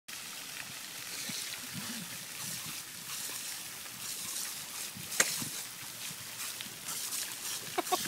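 Water from a pond fountain jet spraying and pattering down onto the water and reeds, a steady hiss of falling water, with one sharp click about five seconds in.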